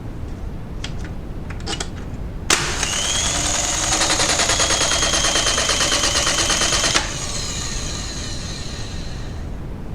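Terasaki air circuit breaker operating: a few light clicks, then a sharp snap about two and a half seconds in, followed by its spring-charging motor whirring with a fast rattle for about four and a half seconds before cutting off abruptly.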